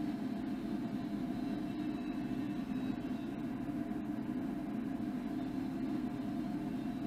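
SKIQ 16 CNC single-column vertical lathe running with its empty table turning: a steady low mechanical hum with a fainter higher tone over it.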